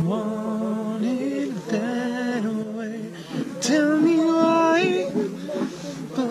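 A person singing unaccompanied, holding long steady notes in short phrases with brief breaks between them.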